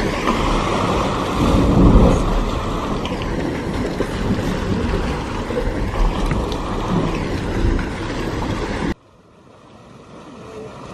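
Dragon's Mouth Spring, a hot spring in a steaming cave, churning and sloshing with deep bellowing surges of steam and water. The rumble cuts off abruptly about nine seconds in to a much quieter steady noise.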